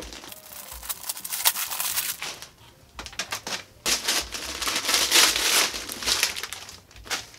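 Wrapping paper being torn and crumpled off a gift box, in two bouts of crinkling and ripping with a short pause between them. The second bout, about four seconds in, is the louder.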